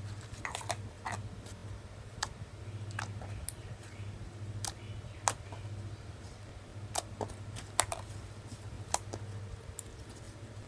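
Yellow slime being squeezed and kneaded by hand, giving irregular sharp clicks, one or two a second, over a steady low hum.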